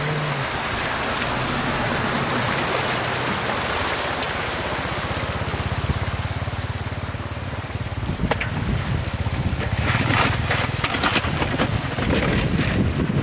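Steady rush of shallow water flowing over mud, with a low, steady hum underneath. From about eight seconds in, scattered knocks and rustling break in.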